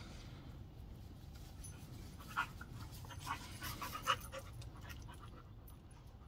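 A dog panting during rough play, in quick short bursts that cluster between about two and four seconds in.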